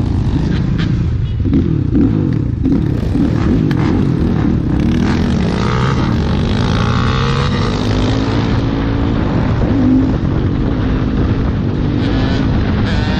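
Motorcycle engines running on the road, their pitch rising and falling as they speed up and slow down, with wind rumble on the microphone.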